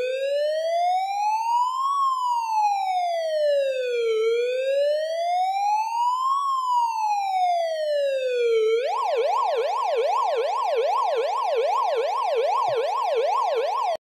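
Electronic siren sound effect in the police wail-and-yelp style. A slow wail rises and falls about every four and a half seconds, then about nine seconds in it switches to a fast yelp of about three sweeps a second, and cuts off suddenly.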